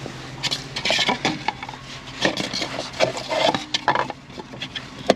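Black plastic drainage-tile caps clattering and knocking against each other and the excavator cab's metal floor as they are picked up by hand, in an irregular run of hollow knocks.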